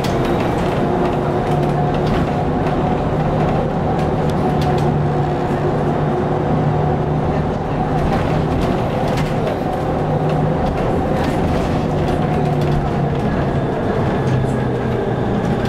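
Cabin sound of a Hess lighTram trolleybus on the move: the electric traction drive hums in several steady tones over road and tyre noise.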